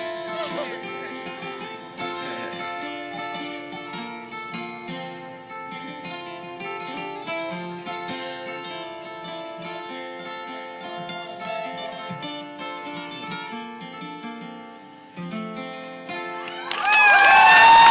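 Acoustic guitars played live through the song's instrumental ending. They fall almost silent briefly before a last phrase. Near the end the audience breaks into loud cheering and whistling, the loudest part.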